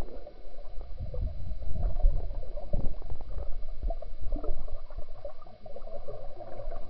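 Muffled underwater sound from a camera submerged in a swimming pool: irregular low rumbling and gurgling of water stirred by people moving around it, with scattered soft knocks.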